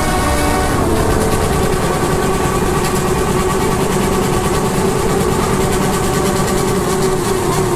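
Motorcycle engine running steadily at an even pitch, with no revving.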